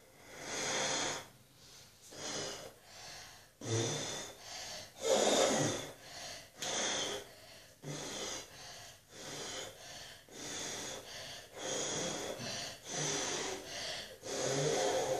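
Repeated puffs of breath blown through a homemade foam maker: a cut-off plastic bottle with a sock over its open end, soaked in shampoo and water, the air forced through the soapy sock to make foam. About one puff a second, with short gaps between.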